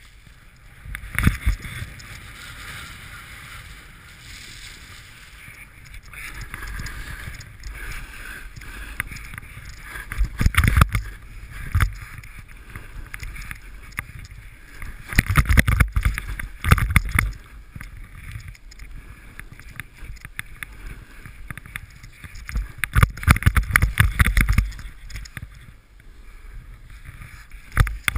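Snowboard sliding and carving down a snow slope, its edges scraping over the snow in four louder spells of rumbling scrape as the rider turns, under a steady rush of wind across an action camera's microphone.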